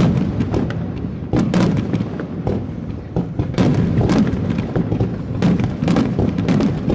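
Aerial fireworks bursting in rapid succession: a fast, irregular string of sharp bangs and booms over a continuous low rumble, as shells are fired one after another in a finale barrage.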